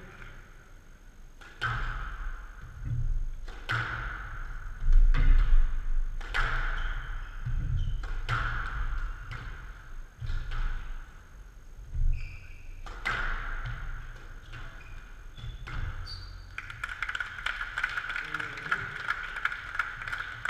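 Squash rally: the rubber ball struck by rackets and hitting the court walls, a sharp, echoing ping every two to three seconds, with the players' footsteps thudding on the court floor between shots.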